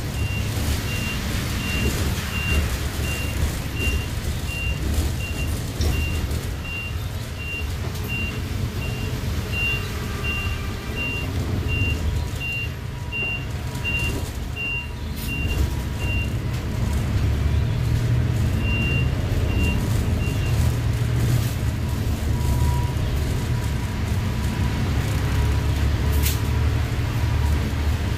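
City bus engine and road noise heard from inside the cabin, a steady low rumble, with a high electronic beep repeating about twice a second that stops a little past halfway and comes back briefly a few seconds later. A single sharp click near the end.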